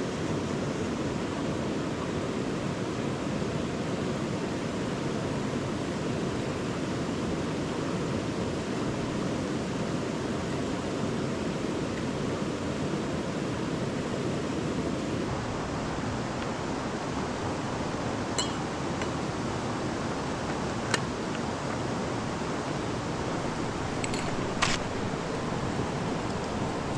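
River water rushing steadily. A few sharp clicks or knocks come over it in the second half.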